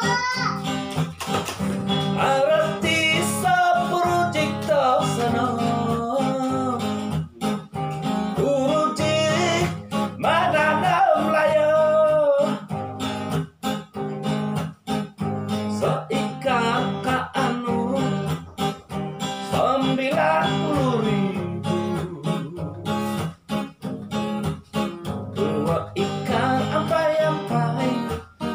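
A man singing while strumming an acoustic guitar, holding and sliding between sung notes over steady strumming.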